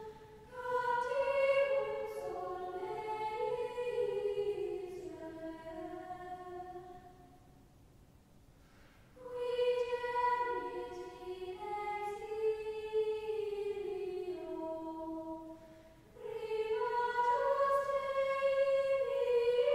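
A choir singing a slow melody in long phrases that each drift downward in pitch, with two short breaks, about eight and sixteen seconds in.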